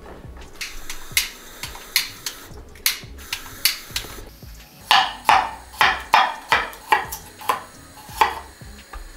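Sharp knocks of a utensil in kitchen work, scattered at first, then a steady run of about three a second starting about five seconds in.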